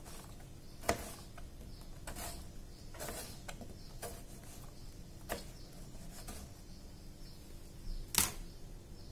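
Kitchen knife slicing a tomato on a plastic cutting board: a few irregular taps of the blade on the board, with a louder knock about eight seconds in.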